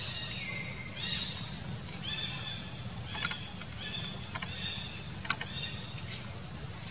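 Infant macaque giving repeated short, high-pitched calls about once a second, the first sliding down in pitch, over a steady low hum. Two sharp clicks stand out, about a third and three quarters of the way through.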